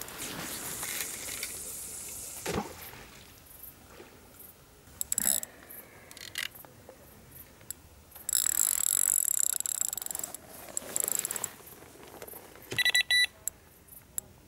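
Rustling and handling noise at a carp rod pod, then an electronic carp bite alarm gives a few quick beeps near the end as the rod is laid back on the pod.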